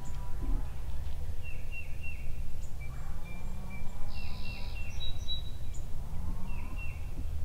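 Outdoor field sound dominated by a steady low rumble, with a strutting wild turkey gobbler giving low hums of about a second each, near three seconds in and again near six. A songbird repeats short falling chirps in runs of three or four.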